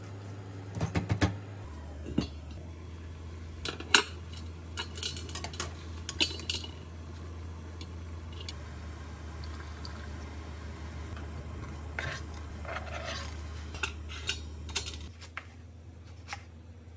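Clinks and knocks of a metal pot and utensils on a gas stove as bean sprouts are put into a pot of water, in scattered clusters over a steady low hum. Near the end, a knife taps on a wooden cutting board.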